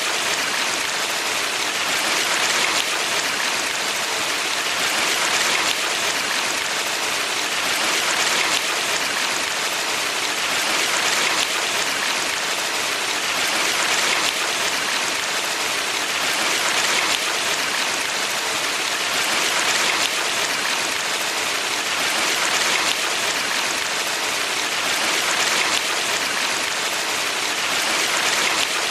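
Water of a valley stream rushing steadily, swelling gently every few seconds.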